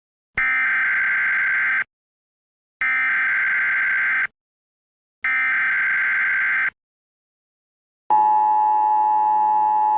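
Emergency Alert System SAME header: three identical bursts of warbling digital data tones, each about a second and a half long with silent gaps between, followed about eight seconds in by the steady, harsh two-tone EAS attention signal.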